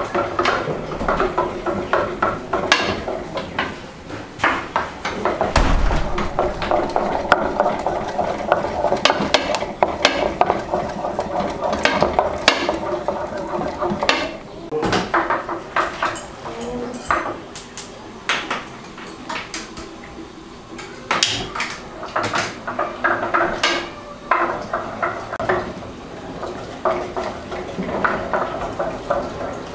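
Metal utensils and dishes clinking, knocking and scraping in irregular clatter, as in food being handled and stirred in pots and bowls.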